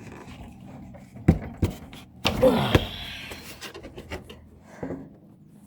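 Sharp clicks and knocks of the retaining clips on a riding mower's air filter cover being worked loose by hand, with a short grunt in the middle.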